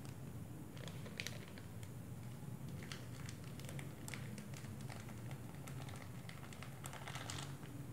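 Faint scattered ticks and crackles of spice being sprinkled by hand onto grated carrot and ground meat in a plastic tub, over a low steady hum.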